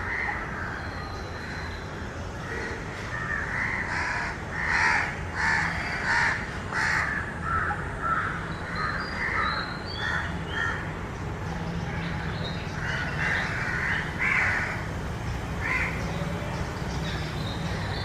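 Crows cawing in a run of harsh calls, about two a second, with a short pause and then a few more calls.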